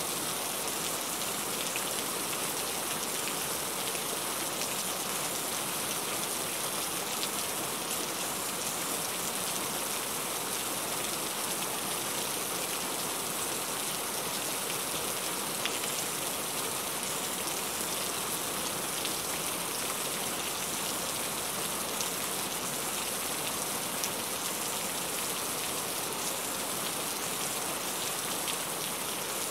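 Heavy rain falling steadily: a dense, even hiss with faint ticks of single drops scattered through it.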